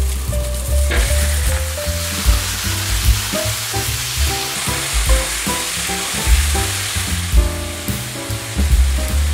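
Raw beef ribs sizzling as they hit hot oil with fried onion and garlic in a pot; the hiss starts about a second in and runs steadily. Background music with a steady beat plays throughout.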